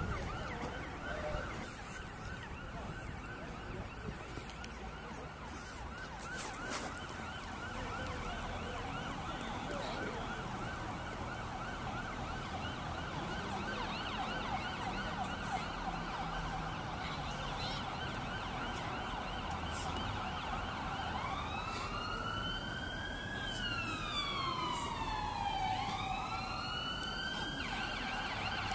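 An emergency vehicle's siren sounding over road noise, in a fast warbling yelp for most of the time, then switching to slower rising and falling wails about three-quarters of the way through.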